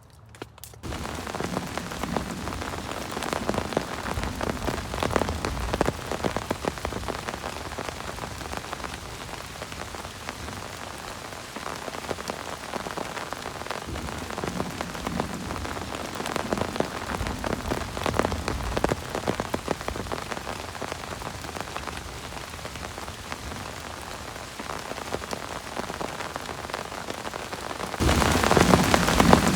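Heavy rain falling, with many separate drops pattering on a surface. It starts about a second in and gets louder near the end.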